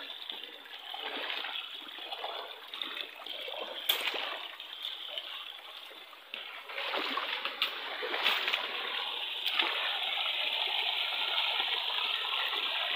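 Water splashing as feet wade through a shallow, rocky stream, over the rush of flowing water, which grows louder and steadier about halfway through. A few sharp clicks stand out, the loudest about four seconds in.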